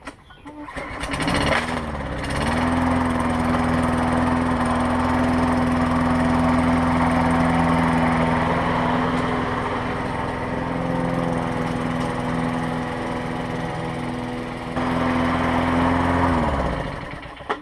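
Lawn-Boy 10330 mower engine started, catching about a second in, then running steadily at speed. It is shut off near the end and winds down. The engine runs cleanly on its rebuilt carburetor with new gaskets.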